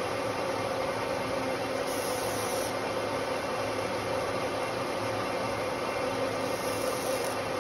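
Metal lathe running steadily with a large electric motor armature spinning in the chuck, a continuous hum and hiss with a steady mid-pitched tone, as its copper commutator is turned with a carbide tool.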